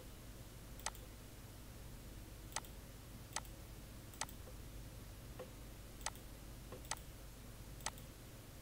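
Computer mouse button clicking: about seven single, sharp clicks roughly a second apart, each one ticking another checkbox in a list, over a faint low steady hum.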